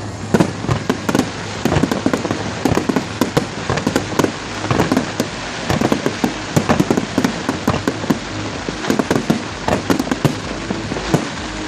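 Aerial fireworks crackling and popping: a dense, continuous run of sharp cracks, several a second.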